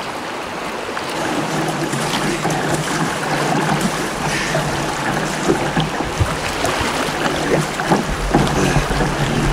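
Steady rush of river water around a paddled canoe, slowly growing louder, with a few scattered knocks and a low rumble building near the end.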